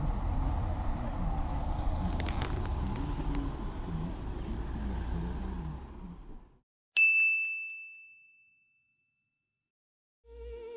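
Outdoor background noise with a low wind rumble on the microphone cuts off abruptly about six and a half seconds in. A moment later a single bright ding rings at one clear pitch and fades over about a second and a half. Music begins just before the end.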